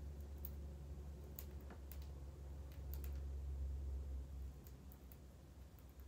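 A budgerigar husking millet seeds off a millet spray with its beak: a scatter of small, sharp clicks at irregular intervals. A steady low hum runs underneath.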